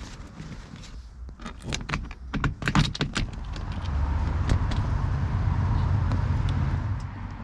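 A quick run of clicks and knocks as the bent-wood cockpit coaming is pressed into the kayak's PVC skin, then a car passing, a steady low rumble rising about four seconds in and fading near the end.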